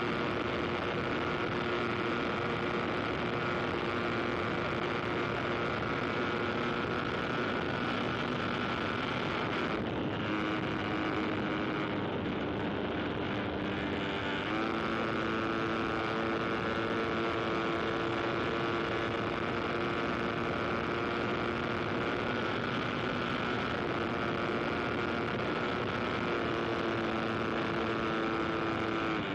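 An aircraft engine running steadily. Its pitch dips about ten seconds in and steps back up a few seconds later.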